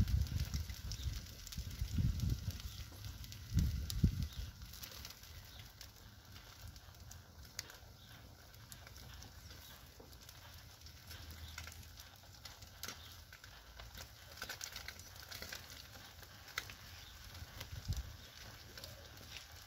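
Wood fire burning in a metal brazier, crackling with scattered small pops. A few low thumps come in the first four seconds.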